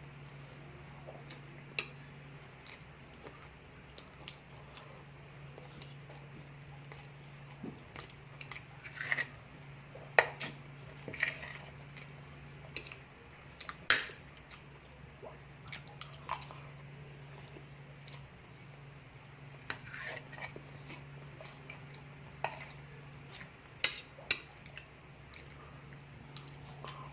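Close-up eating sounds: a person chewing and biting food, with irregular crunches and sharp clicks, a few loud ones around the middle and near the end. A steady low hum runs underneath.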